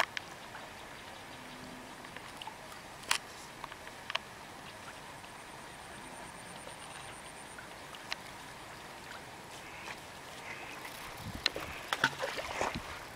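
Faint steady outdoor background hiss broken by a few isolated sharp clicks. About eleven seconds in, a short run of louder knocks and rustles follows as the handheld camera is swung about.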